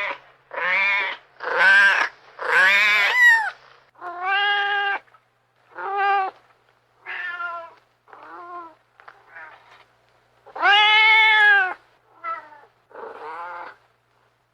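An angry cat yowling and meowing in about a dozen separate drawn-out calls with short pauses between them. The loudest and longest calls come in the first few seconds and again near the end.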